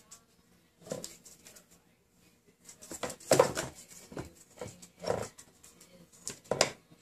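Kittens and a cat scuffling in a cardboard box: a handful of sudden scrapes and bumps as they paw and tumble against the cardboard, the loudest about halfway through.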